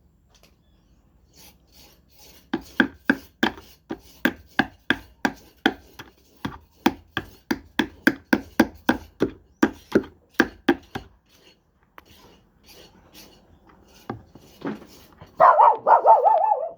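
A run of sharp knocks, about three a second for some nine seconds, as the pulley of a tanquinho washing machine is knocked back into place over its new fiber washer. Near the end a dog barks.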